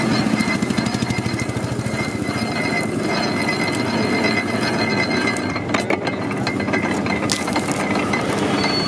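Sugarcane juice crusher running, its geared steel rollers making a fast, even clatter with a thin steady whine over it.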